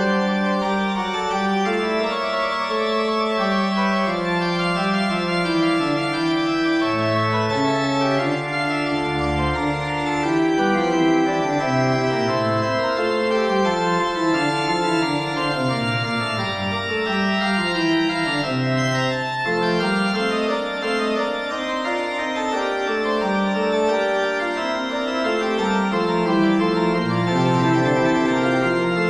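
Organ music: held chords over a slowly moving bass line, playing steadily.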